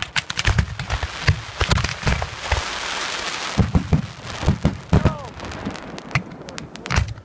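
Aerial firework shells bursting in rapid succession, a barrage of sharp booms with a hissing crackle thickening about halfway through. The bursts thin out near the end.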